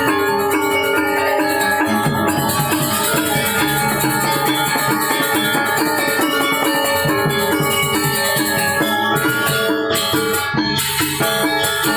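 Balinese gamelan gong ensemble playing an instrumental tabuh: bronze metallophones ring in fast, evenly repeating figures over drums.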